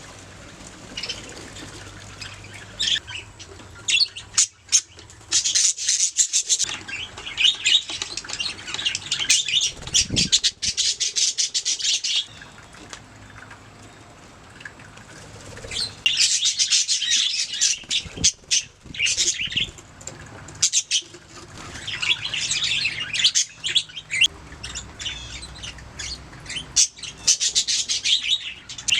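Budgerigars chattering and chirping in fast, high-pitched warbling runs, coming in spells of several seconds with quieter gaps between.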